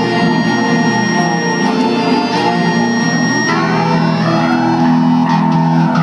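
Instrumental music playing loudly and continuously, with held high notes over a steady lower layer that shifts about three and a half seconds in.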